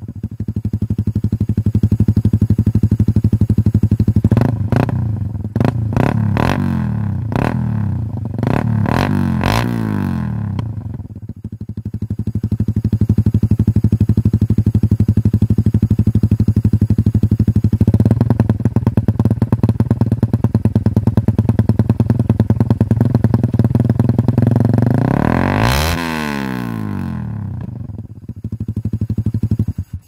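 Suzuki Raider R150 Fi's single-cylinder four-stroke engine running through a replica SC Project muffler with its silencer insert removed. About ten quick throttle blips come between roughly four and ten seconds in, then it idles steadily, runs louder for a stretch in the second half, and is revved once more near the end.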